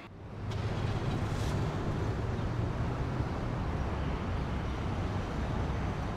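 Street traffic with a tram passing close by: a steady low rumble and hum.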